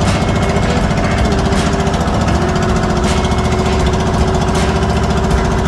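Engine of a motorized outrigger fishing boat running steadily with a rapid, even beat, loud and close.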